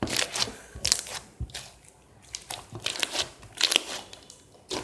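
Thick slime being squeezed and pressed in the hands, giving a quick irregular run of clicky, crackling pops.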